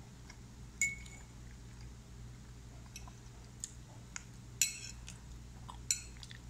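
Metal fork clinking and scraping against a plate while scooping food: a handful of sharp clinks with a brief ring, the loudest cluster about two-thirds of the way through.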